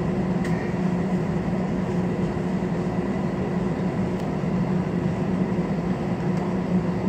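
Steady airliner cabin drone from the engines and air conditioning: an even rushing noise with a strong low hum and a few constant tones, with no change in level.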